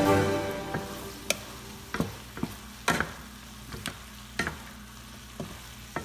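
A wooden spatula stirs vegetables and tofu in a square copper-coloured nonstick pan, knocking and scraping against the pan at irregular intervals over a faint sizzle of frying.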